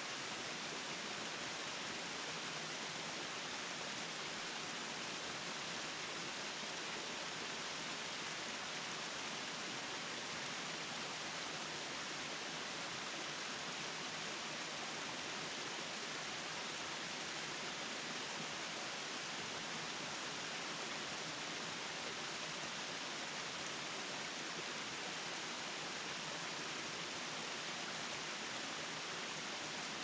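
Kiyomizu Falls, a tall thin waterfall, pouring steadily: an even rush of falling water with little low rumble and no change throughout.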